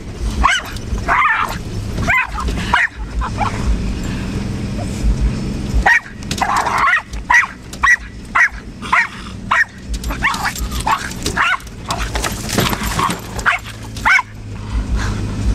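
Miniature pinscher barking in volleys of short, sharp barks, with a break of about three seconds early on and a dense run in the middle, over the steady hum of the car driving.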